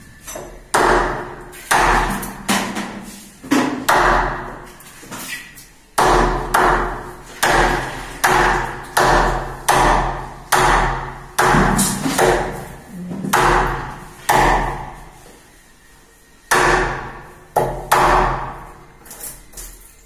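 A claw hammer strikes a wood chisel, cutting into a wooden door frame: about two dozen sharp blows, one or two a second, each with a short ring after it. The blows break off for about two seconds before starting again near the end.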